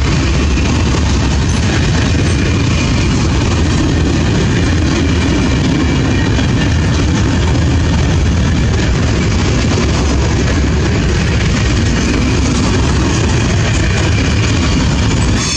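Freight train of covered sliding-wall wagons passing close by: the steel wheels running over the rails make a loud, steady noise that does not let up as wagon after wagon goes past.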